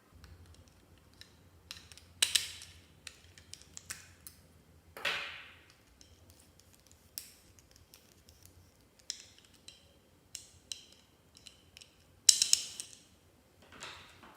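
Clear slime being worked by hand: irregular sticky clicks and crackles, with a few louder squishy pops. The loudest come about two, five and twelve seconds in.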